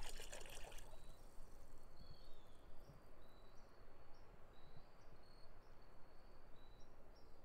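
Liquid poured from a glass jug into a bucket of water, a faint pour under a background of short, high chirps that repeat irregularly.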